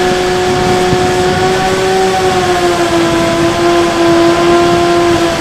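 Bixler 3 RC plane's brushless electric motor and pusher propeller whining steadily in flight, heard from an onboard camera with wind rushing over it. The pitch drops slightly about two and a half seconds in.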